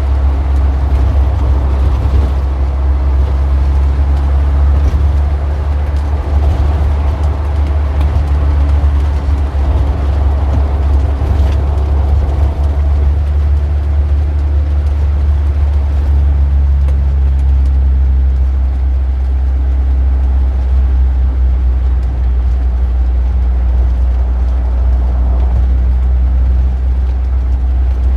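Street traffic: a steady, deep engine rumble from vehicles running close by, with engine hum shifting in pitch every few seconds as vehicles move on and pull away.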